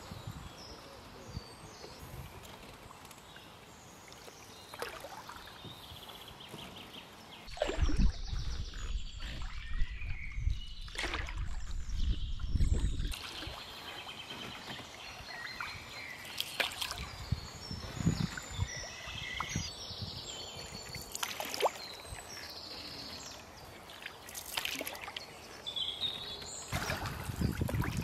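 Canoe paddling on a calm river: paddle strokes with water splashing and trickling off the blades. A heavy low rumble runs from about 8 to 13 seconds in, and the water noise grows louder near the end.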